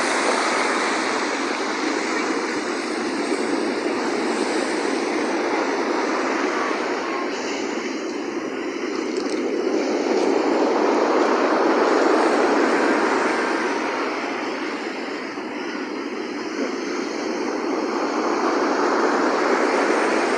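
Sea waves washing in, a steady rushing noise that slowly swells and ebbs, loudest about twelve seconds in and again near the end.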